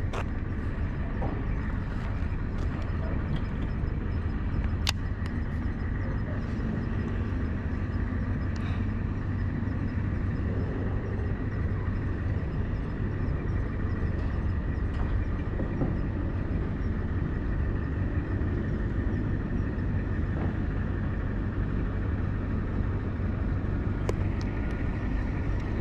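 Steady low outdoor rumble and hiss, with a few faint clicks.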